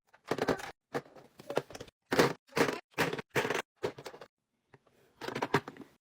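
Plastic fidget toys being handled and set down, in a string of short clattering bursts with brief silent gaps between them.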